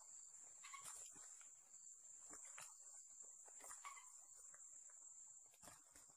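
Faint scuffling of two junglefowl roosters fighting, with wing flaps and several sharp knocks on leaf litter. A steady high-pitched insect drone runs underneath.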